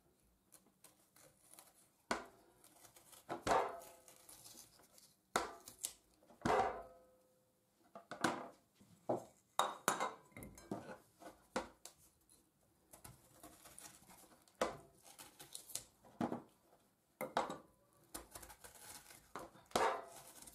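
A knife and dishes knocking and clinking irregularly in a kitchen, a few strikes ringing briefly, while a black radish is being cut and hollowed into a cup.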